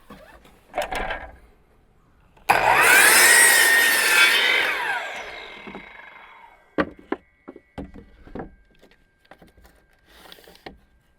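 Power saw cutting through a length of wooden clapboard siding for about two seconds, then the blade spinning down with a falling whine. A few sharp knocks and clicks follow.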